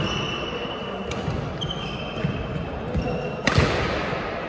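Badminton play on a hall court: rubber-soled shoes squeak several times on the floor. About three and a half seconds in, a racket strikes the shuttlecock with a sharp, loud crack that echoes in the hall.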